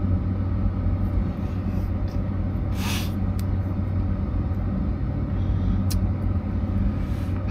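Semi truck's diesel engine idling, a steady low hum heard inside the cab. A short hiss comes about three seconds in and a single click near six seconds.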